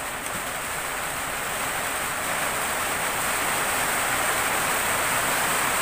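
A steady rushing noise that grows gradually louder.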